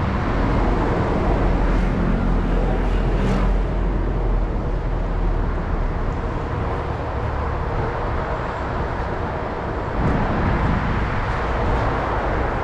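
Steady road traffic noise from a city street, cars and buses passing, with a heavier low rumble in the first few seconds.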